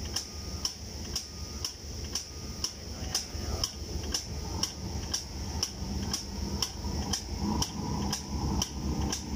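Air-driven airless paint-sprayer pump cycling, with a sharp click about twice a second as its piston changes stroke, over a steady hiss of the spray gun discharging into a bucket.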